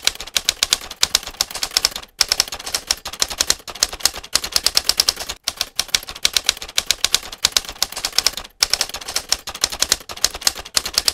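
Manual typewriter typing: rapid keystroke clacks, breaking off briefly three times.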